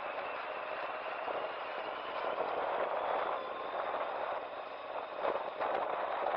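Yamaha FJR1300 motorcycle riding over a rough, broken gravel road surface: a steady rush of wind and road noise with the engine underneath, and a few short knocks from the rough surface around five seconds in.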